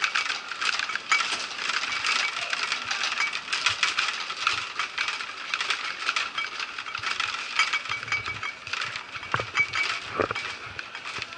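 Metal airport luggage trolley rattling and clinking as it is pushed along, a continuous stream of small metallic clicks.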